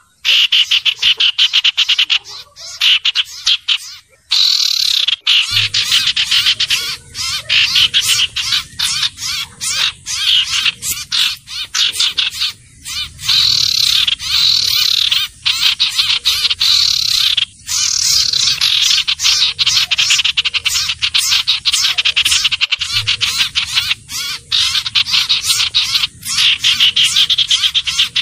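Sirtu/cipoh (common iora) lure-call recording: a busy, unbroken stream of rapid high chirps and trills, many a second, with brief breaks about 4 and 17 seconds in.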